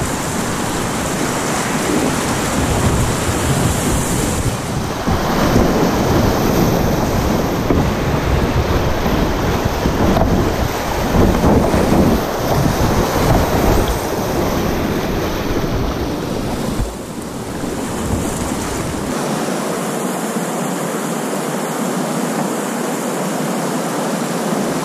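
Whitewater rushing and splashing close around a kayak running a rapid, heard from a helmet camera with wind buffeting the microphone. The rush is heaviest from about five to sixteen seconds in, then eases, and the deep rumble falls away in the last few seconds.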